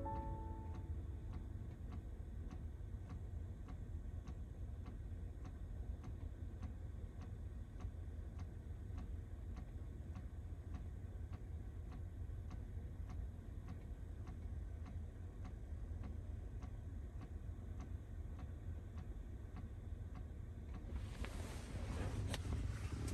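A clock ticking steadily with evenly spaced ticks, over a low steady rumble. Near the end a broad rushing noise swells up and covers the ticks.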